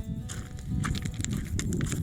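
Background music, with footsteps on a dirt trail.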